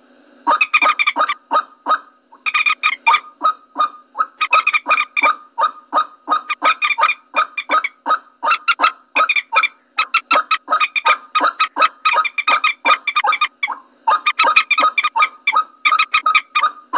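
Common moorhen calls played as a bird lure: rapid runs of short honking clucks, about four a second, in bouts of a second or two with brief pauses between.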